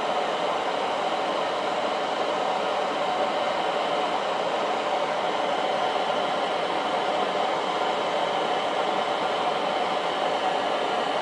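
Handheld gas blowtorch flame hissing steadily while heating a small drill-rod cutter to red heat for hardening.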